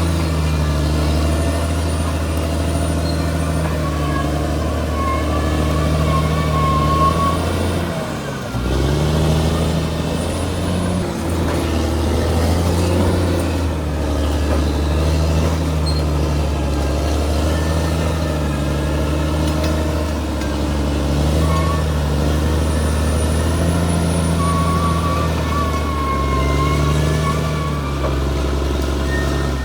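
Caterpillar D6R crawler bulldozer's diesel engine working steadily, with occasional high squeals from the running gear. The engine note dips and shifts briefly about a third of the way in.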